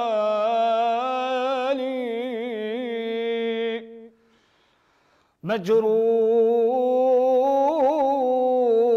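A man singing an unaccompanied Arabic mawwal, holding long notes with wavering ornaments. He breaks off for about a second and a half of near silence and then comes back in on a rising note that he holds.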